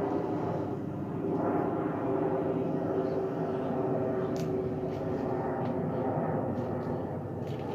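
Twin-engine jet airliner flying overhead: a steady engine rumble with a held droning tone.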